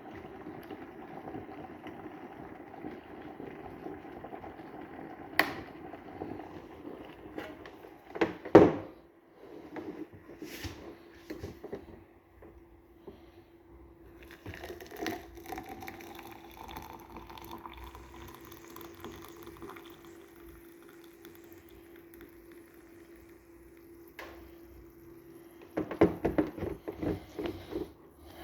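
Electric kettle boiling, then a loud knock about eight seconds in. Water is poured into a cup, its pitch rising as the cup fills, and a few clattering knocks come near the end, over a steady hum.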